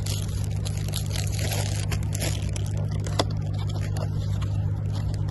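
Crinkling of a foil wrapper and handling of a cardboard wand box and card being unpacked, with one sharp click a little past three seconds in, over a steady low hum.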